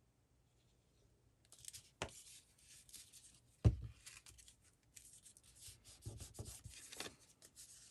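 Paper being handled and rubbed, heard as faint, uneven rustling and scraping that begins about a second and a half in. A light tap comes near two seconds, and a louder thump just before four seconds.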